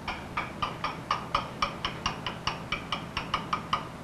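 Small metal mallet tapping a chisel that cuts letters into stone: a steady run of light, ringing strikes, about four to five a second, stopping shortly before the end.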